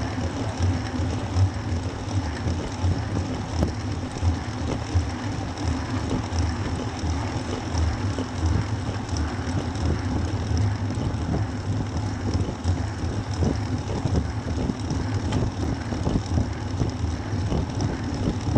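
Wind buffeting the microphone of a camera on a moving road bicycle, a steady low rumble that gusts, over the hiss of tyres rolling on asphalt.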